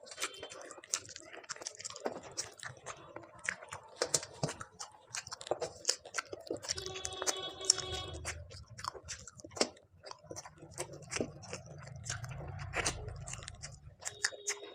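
Close-up mouth sounds of a person chewing and biting food, with many short sharp clicks and some crunching.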